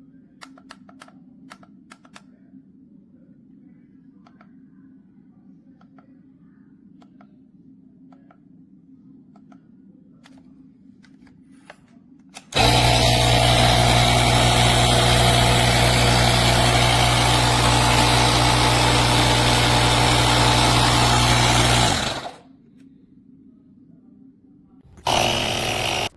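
Cordless 21-volt handheld tire inflator's compressor running at a steady pitch for about nine seconds, then winding down when switched off. It starts again briefly near the end. Before it starts there are a few faint clicks over a low hum.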